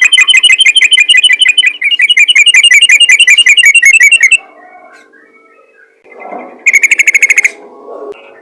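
Yellow-vented bulbul (trucukan) singing a rapid run of chattering notes, about nine a second, breaking off briefly near two seconds in and stopping after about four seconds. A second short, fast burst of notes comes about seven seconds in.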